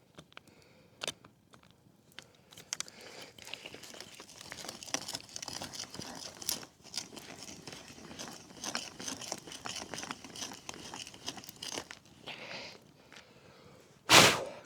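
Hand brace and bit boring into a tulip poplar log: a scratchy, crackling rasp of the bit cutting wood, full of small clicks, which starts about two seconds in and stops a couple of seconds before the end. Then a single loud knock near the end.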